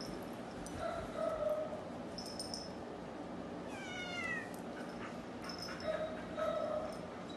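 A domestic cat meowing in short low calls, a pair about a second in and another pair about six seconds in, with a brief falling squeak near the middle.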